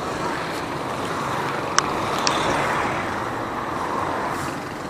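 Steady rush of wind and road noise from a bicycle ride on a paved street, picked up by a handlebar-mounted camera. Two sharp clicks about half a second apart come about two seconds in.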